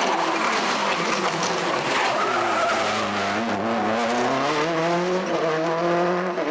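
Subaru Impreza WRC rally car's turbocharged flat-four engine revving hard, its pitch dropping as it slows for a corner and then climbing again as it powers away.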